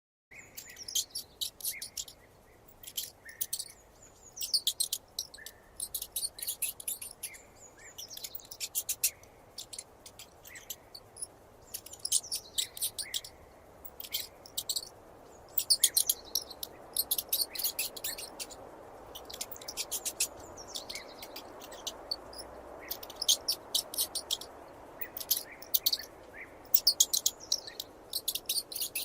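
Mouse squeaking: rapid runs of very high-pitched squeaks in short bursts with brief pauses between them, over a faint steady hiss.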